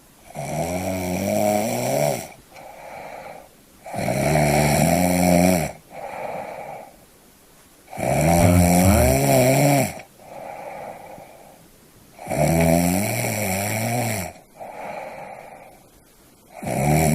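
A sleeper snoring in a steady rhythm, about once every four seconds. Each breath is a loud, pitched snore lasting a second or two, followed by a softer, airy breath.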